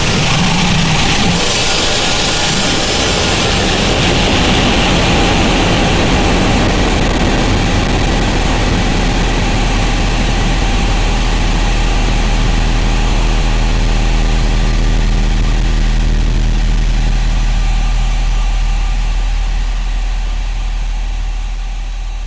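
Harsh noise music: a dense, unbroken wall of static-like noise over a steady low hum, fading down over the last few seconds.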